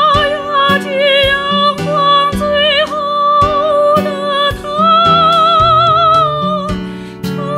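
A Chinese folk song sung with vibrato over instrumental accompaniment, ending in a long held note in the second half.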